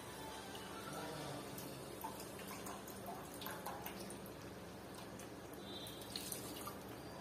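Gravy of potatoes and black chickpeas simmering in a pan with faint bubbling ticks. Water is poured into the pan from a steel vessel, splashing into the curry, near the end.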